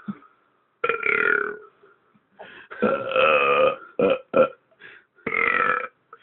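A person belching over and over: a run of six or seven belches with short silences between them, the longest lasting about a second near the middle.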